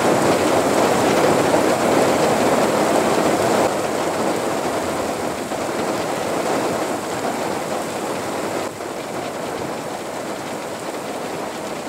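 Heavy rain pouring down in a steady hiss, loudest for the first few seconds, then dropping a little in level twice.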